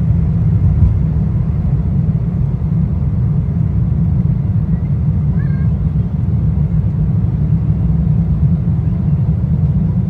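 Jet airliner cabin noise during takeoff and initial climb: the engines make a loud, steady low rumble heard from a window seat by the wing.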